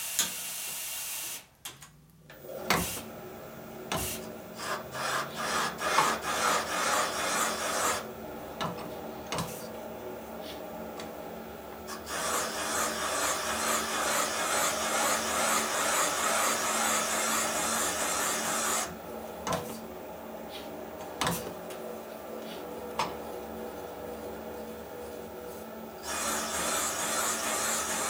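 Carbide cutter of a Sunnen VGS-20 valve seat machine cutting an exhaust valve seat in a panhead cylinder head: a scraping rasp of the cutter on the seat, in several passes with short pauses between them and a few sharp clicks early on, over a faint steady machine hum.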